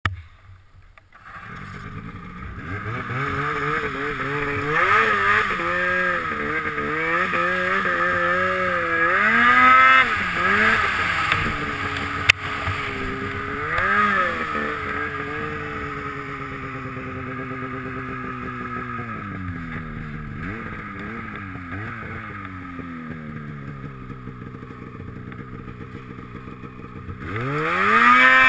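Snowmobile engine ridden through deep snow, its revs rising and falling again and again with the throttle and a sharp rise in revs near the end. A single sharp click about twelve seconds in.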